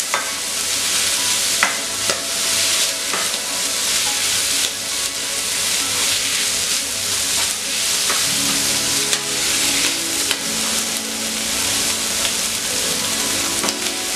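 Shredded chicken sizzling in hot oil in a non-stick frying pan, stirred with a spatula that scrapes and taps against the pan now and then.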